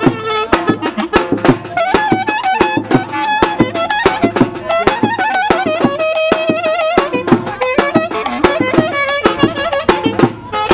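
Live clarinet playing an ornamented melody full of quick wavering trills, over a steady drum beat: traditional dance music.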